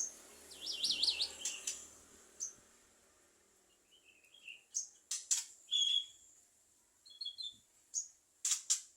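Javan myna calling: a quick warbling whistle about a second in, then scattered short chirps and sharp clicking calls in small groups.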